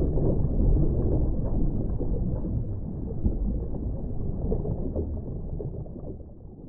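Muffled water sloshing and rumbling heard through a camera held underwater at the surface, with small crackles of bubbles and splashes. It fades out near the end.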